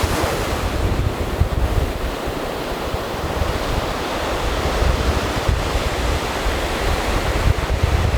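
Ocean surf washing onto a beach in a steady rush, with wind buffeting the microphone in uneven low rumbles.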